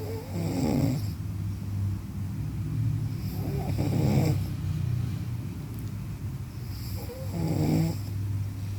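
A sleeping person snoring, a croaking, frog-like snore, three snores about three and a half seconds apart, each under a second long, over a steady low hum.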